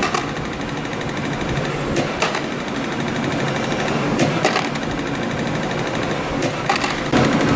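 CNC compression spring coiling machine running steadily while forming 0.8 mm wire springs, with a sharp metallic click about every two seconds as each cycle repeats.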